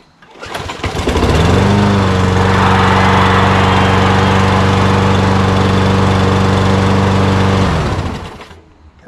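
Craftsman auto-choke push mower's small single-cylinder engine pull-started, catching on the first pull and revving up to a steady run. It runs evenly for about six seconds, then shuts off and spins down near the end.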